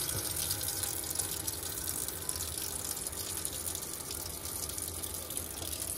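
Water running steadily from a caravan's mixer tap, set to the middle position so both the hot and cold lines drain as the water system is emptied for winter.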